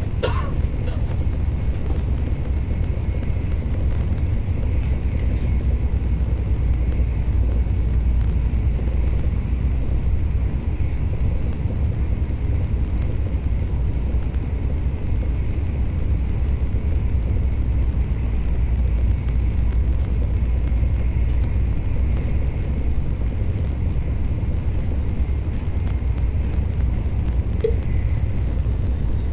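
Tokaido Shinkansen running at speed, heard inside the passenger cabin: a steady low rumble with a faint high whine that comes and goes above it.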